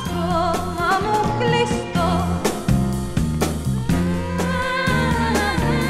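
Music: a 1971 Greek psychedelic rock recording, with a steady bass line, drums and a wavering lead melody.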